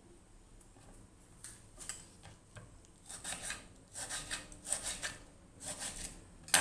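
Kitchen preparation sounds: irregular rasping and rubbing as vegetables are handled in a baking dish. The sounds grow busier in the second half and end with a sharp knock.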